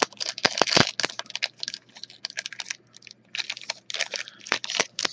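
Foil trading card pack wrapper being torn open and crinkled by hand, a quick run of sharp crackles and rustles that eases briefly about three seconds in.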